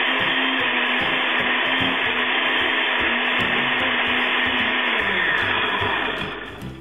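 Countertop blender running at speed, pureeing tomatillos, green chiles, onion and cilantro in a little water, blended only briefly so the salsa stays coarse. About five seconds in it is switched off and the motor winds down, its hum falling in pitch as the noise fades.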